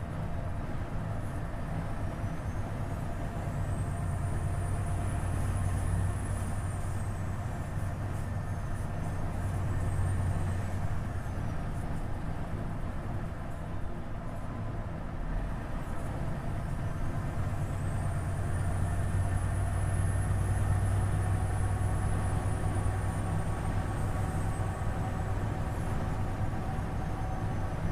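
Volvo FH 500 truck's 13-litre inline-six diesel engine running on the road: a steady low drone that swells a few times. Over it, a high whistle rises and falls three times.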